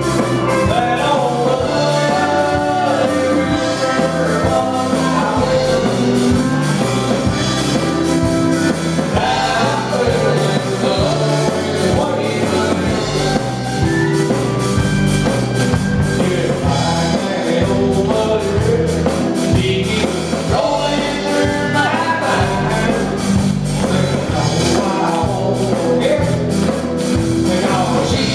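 Live country band playing a song: electric guitars, bass and drums, with a singer.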